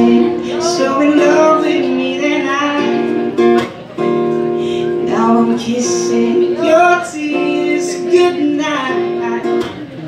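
A man singing a slow pop song to his own strummed acoustic guitar, the chords ringing steadily under the vocal line, with short breaks between phrases.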